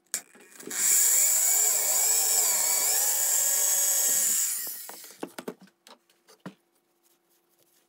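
Electric hand drill boring through a hard steel fork, its bit cutting the oiled metal with a wavering screech for about four seconds. The drill then stops, followed by a few light clicks and taps.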